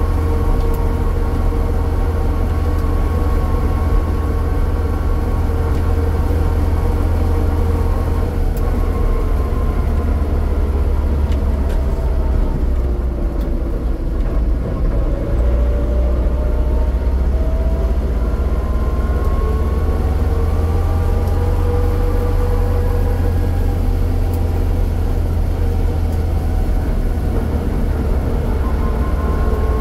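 Vehicle driving on a road, heard from the vehicle itself: a steady low rumble of road and drive noise with a pitched running tone. The tone falls as the vehicle slows about halfway through and rises again as it picks up speed.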